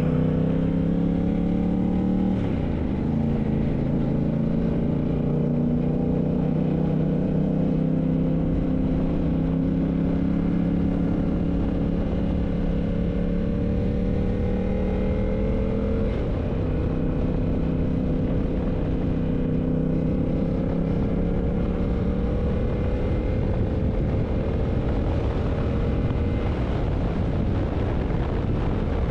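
Yamaha MT-07's parallel-twin engine under way, pitch climbing as the bike accelerates, dropping with an upshift about two seconds in and again about sixteen seconds in, then climbing again. Low wind rush runs beneath the engine.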